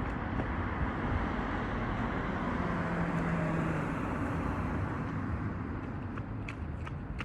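A road vehicle passing by: a steady rushing noise that swells to a peak about halfway through, with a brief low hum, then fades away.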